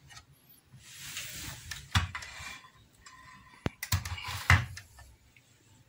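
Handling noise from hands and the phone moving over an amplifier's metal chassis: two stretches of rustling, each with a sharp click or knock, and a single sharp click between them.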